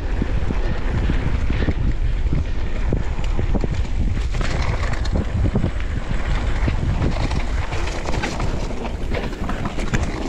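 Wind buffeting the microphone: a loud, steady low rumble with uneven gusts.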